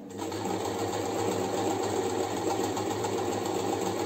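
Janome 393 MC sewing machine stitching at a steady speed, starting up right at the beginning, as it sews the third step of a four-step buttonhole.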